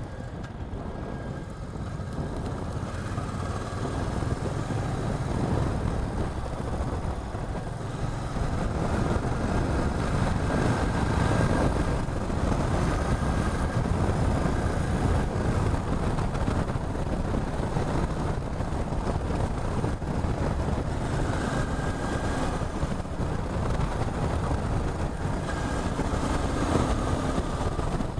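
Motorcycle running on the road, with wind and road noise over the microphone. The sound grows louder over the first several seconds, then holds steady.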